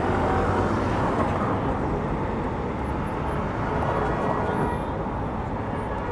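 City street traffic ambience: a steady rumble of passing vehicles, swelling slightly near the start and again around four seconds in.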